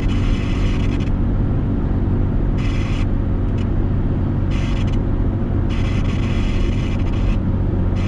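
Steady engine and road noise inside the cab of a Dodge Ram pickup driving on the highway, a low rumble under a higher hiss that cuts in and out several times.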